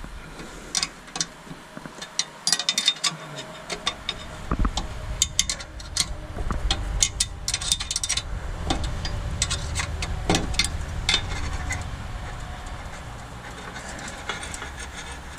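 Metal clinks and knocks of hand tools working on a machine part. A low rumble starts about four seconds in, swells and then eases off.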